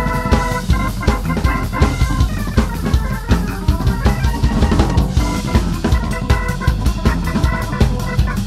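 Drum kit played busily with a live band of keyboard and bass guitar, bass drum and snare to the fore. Held chord tones sound under the drums for the first couple of seconds, and the drum strokes come faster and denser from about five seconds in.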